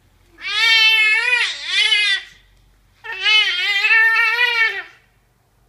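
A nine-month-old baby's voice: two long, loud, high-pitched drawn-out vowel sounds of about two seconds each, the first dipping in pitch in its middle.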